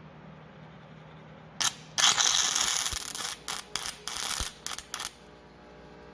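Stick (arc) welding: a sharp crack as the electrode is struck, then about three seconds of loud crackling hiss from the arc, which breaks off and restarts several times before stopping. The electrode is run down a tube to weld onto the head of a broken bolt.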